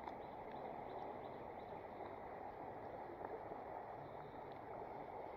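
Steady, faint rush of flowing creek water, with a few faint ticks over it.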